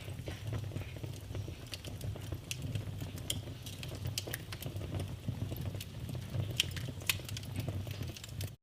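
Wood fire in a fireplace crackling and popping with irregular sharp snaps over a steady low rumble of the burning. The sound cuts out for an instant at the very end.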